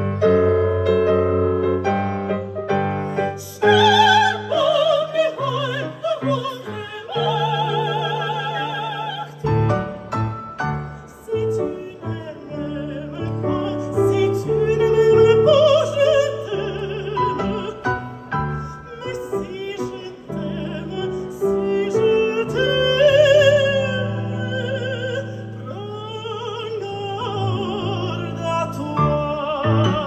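A woman singing in operatic style with strong vibrato, accompanied by piano.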